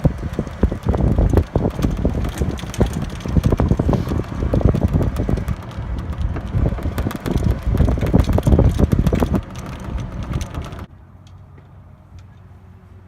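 Wind buffeting the microphone: a loud, uneven, gusty rumble with no steady tone in it. About 11 seconds in it cuts off abruptly, leaving a quiet low hum.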